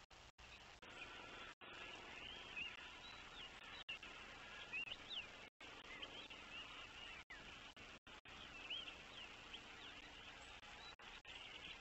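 Faint chirping of small songbirds: many short, quick calls overlapping throughout, with the sound cutting out briefly several times.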